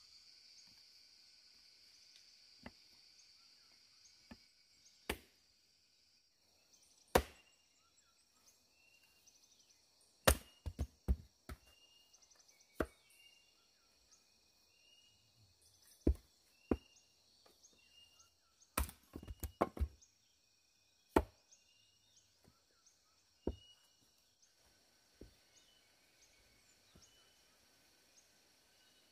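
A hatchet chopping into a wooden log round: sharp wooden strikes at irregular intervals, some in quick clusters of three or four.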